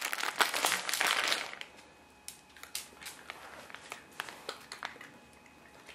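A crinkling rustle for about a second and a half, then a few faint, scattered light ticks.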